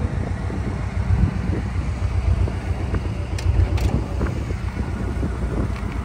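Wind buffeting the microphone: an uneven, gusting low rumble with no engine note, and two short clicks about three and a half seconds in.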